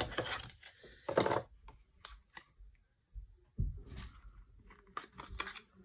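Hands handling small objects: a scatter of irregular short clicks, taps and rustles.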